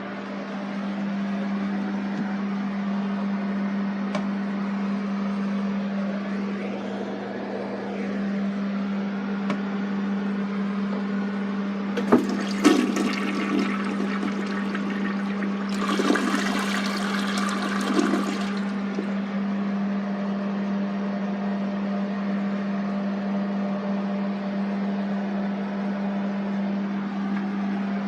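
Mansfield Alto toilet flushing and its tank refilling: steady rushing water, with a few sharp knocks about twelve seconds in and a louder rush of water from about sixteen to eighteen seconds. A steady low hum runs underneath.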